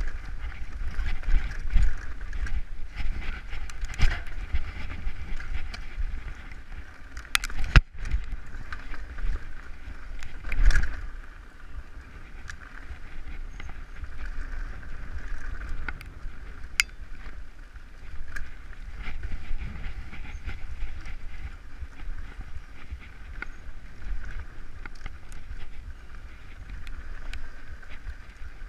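Mountain bike descending a rough, rocky dirt trail: steady tyre and wind rumble with frequent rattles and clicks from the bike, and a few harder knocks, the loudest around eight seconds in and again near eleven.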